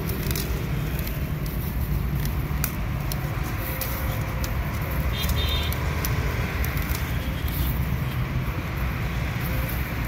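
Steady low rumble of road traffic, swelling and easing, with scattered light clicks and taps and a brief high-pitched patter about five seconds in.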